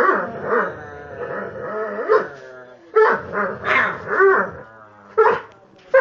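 Dog growling and giving short barks in a string of bursts while tugging on a toy in play.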